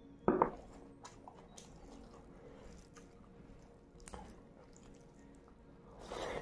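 Close-up eating by hand: fingers squishing into soft rice and gravy, with a short sharp mouth sound about half a second in that is the loudest moment. Near the end comes a wet mouthful as a handful of rice is pushed into the mouth.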